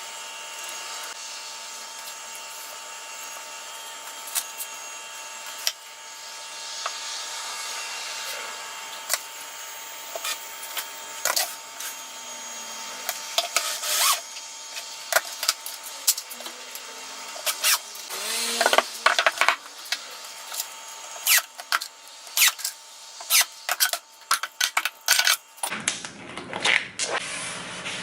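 Woodworking tool work: a steady high hiss with scattered sharp clicks and knocks on wood, which come thick and fast over the later part. Near the end the sound changes abruptly to a lower, fuller rubbing noise.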